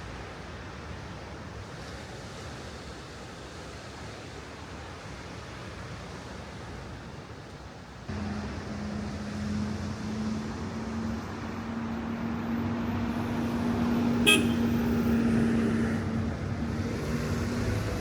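Wind and surf, joined about eight seconds in by a passing motor vehicle's steady low drone that grows louder, then eases off near the end, with one sharp click about fourteen seconds in.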